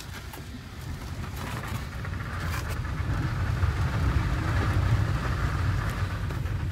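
Small car heard from inside the cabin while driving: a steady low engine and road rumble with tyre hiss, growing louder over the first few seconds.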